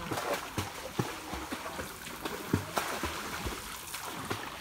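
Floodwater splashing and sloshing as a boy swims and wades through it: a run of short, irregular splashes over a steady wash of water, the loudest about two and a half seconds in.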